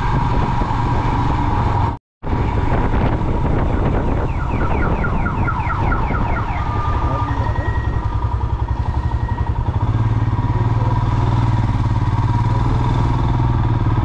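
Motorcycle engine running under the rider, steady and close, as the bike slows for a toll booth. The sound cuts out briefly about two seconds in. From about four to six seconds a quick run of high electronic chirps, about five a second, sounds from nearby traffic.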